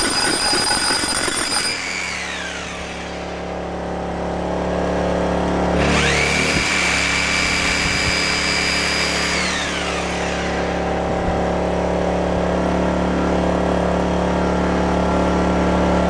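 Bosch RH850VC 14.5-amp rotary hammer drill on its full power setting, running and winding down about two seconds in. It starts again sharply about six seconds in, runs with a steady whine for about three and a half seconds, then winds down again. Under it, a 79cc Sportsman inverter generator engine runs steadily and picks up speed as the drill loads it.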